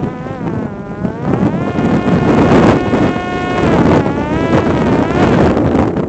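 Parrot Disco fixed-wing drone's electric motor and propeller buzzing, its pitch falling and rising twice as the throttle changes, over heavy wind noise on the microphone.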